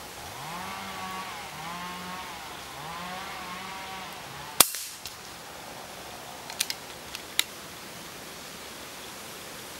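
A moderated PCP air rifle (FX Royale 400) fires once, a single sharp crack a little under halfway through. About two seconds later there are four quick small metallic clicks as the action is cycled to reload. Before the shot, a pitched call sounds three times in the background.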